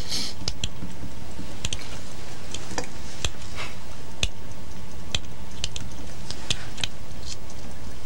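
Scattered light clicks of go stones, about one or two a second at uneven spacing, over a steady hiss and hum.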